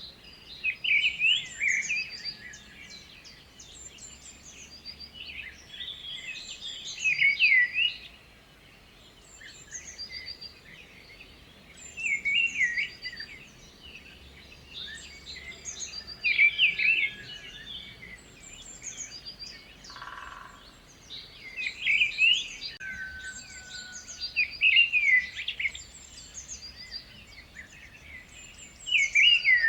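Songbirds singing: several birds repeat short, varied phrases of chirps and trills every few seconds, over a faint steady background hiss.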